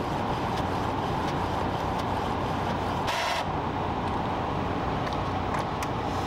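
Epson ET-3760 EcoTank inkjet printer running a photo print job: a steady mechanical whir with faint ticks and a short hiss about three seconds in.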